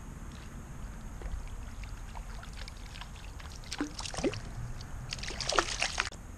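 A small hooked brook trout splashing at the surface of a stream as it is brought to hand, in a short burst about four seconds in and a louder flurry from about five to six seconds in.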